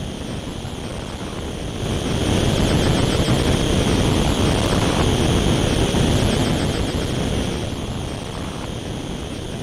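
Dense, rumbling noise drone from live-mixed, electronically manipulated field recordings, with a wavering high whistle on top. It swells up about two seconds in, holds, then slowly fades from about seven seconds on.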